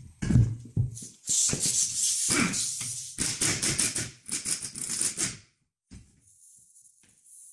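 Front strut coil spring and spring compressor clanking as they are handled and separated on a wooden plank bench. A heavy knock comes a moment in, then a dense run of metal clanks and rattles for about four seconds, stopping about five and a half seconds in.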